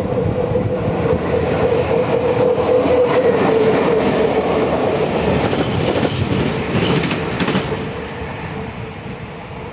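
ET22 electric locomotive running light through a station at speed: a steady whine over the rumble of its wheels on the rails, loudest a few seconds in. It is followed by a quick run of clacks over rail joints and fades as it moves away.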